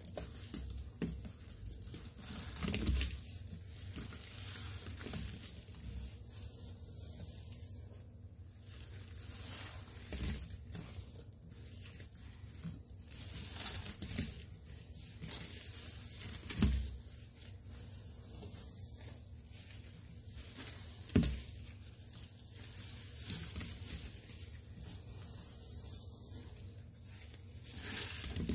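Rubber-gloved hands squeezing and kneading sponges soaked with a thick foamy cleaning-powder paste in a stainless steel sink: steady wet squishing, with a louder squelch every few seconds.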